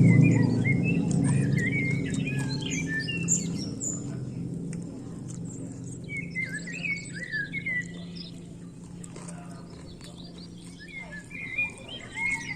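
A songbird singing quick warbling chirps in three short bouts, a few seconds apart. Under it, a low hum fades away over the first several seconds.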